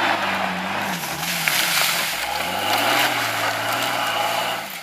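Lifted Jeep Cherokee XJ driven hard off-road, its engine revving up and down a few times, over the hiss and spatter of its big mud tyres churning loose dirt and brush.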